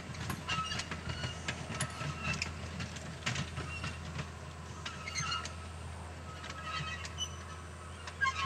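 Cane bins of a narrow-gauge sugar-cane train rolling past, with irregular clicks and clanks of the wheels over the rail joints, short high squeals and a steady low rumble. It eases off slightly as the train draws away.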